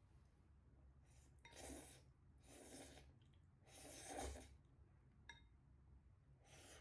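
Faint breathing close to the microphone: four short breaths with uneven gaps between them.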